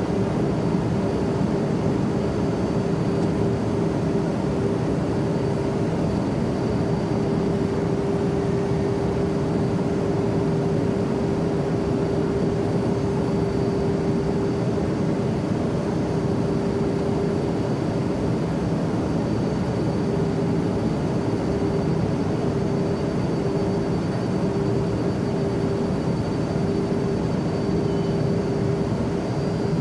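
Airplane cabin noise in flight: a steady, unbroken drone with a constant hum running through it.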